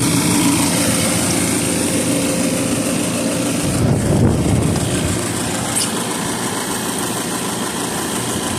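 HVAC machinery running with a steady mechanical hum and a brief louder low rumble about four seconds in.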